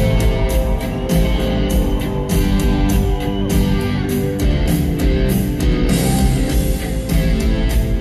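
Live rock band playing an instrumental passage without vocals: electric guitars over bass guitar and a steady drum beat, in a large arena.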